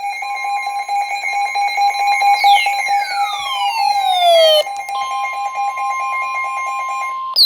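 Electronic emergency alert tones signalling an incoming weather warning: a loud steady alarm tone with a fast flutter, joined by several falling sweeps between about two and a half and four and a half seconds in. A single steady tone then holds, and a short falling chirp comes at the very end.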